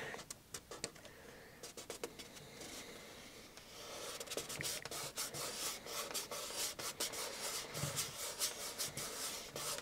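Fingers rubbing a roundel decal down onto a film-covered model wing through the decal's carrier sheet: a run of quick rubbing strokes, busier and louder from about four seconds in.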